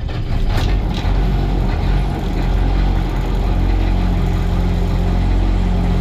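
International truck's 7.3 IDI V8 diesel engine running steadily just after a cold-morning start, heard from inside the cab. It runs pretty smooth.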